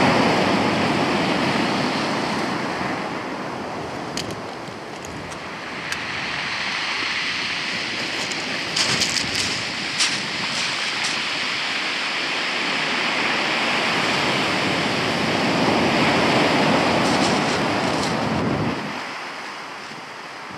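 Surf breaking and washing up a shingle beach, rising and falling in slow swells and easing off near the end, with a few sharp clicks in the middle.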